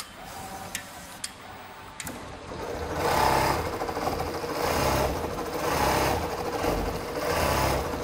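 Richpeace CNC sewing machine stitching Velcro onto fabric. A few clicks at first, then it sews at full speed from about three seconds in, the sound swelling and easing about four times.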